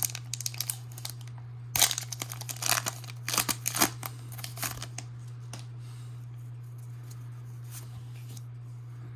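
Foil wrapper of a Pokémon TCG booster pack crinkling and tearing as it is opened, in a run of sharp rustles over the first five seconds or so, then quieting. A steady low hum runs underneath.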